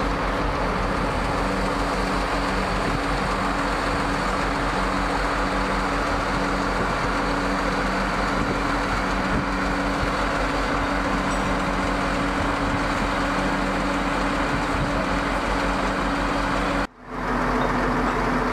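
Armored vehicle engine idling steadily, a low even hum with a fast low pulse beneath it; the sound drops out for a split second near the end.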